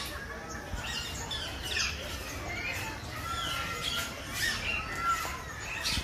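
A flock of green parakeets calling in an aviary: many short squawks and chirps from different birds overlapping throughout.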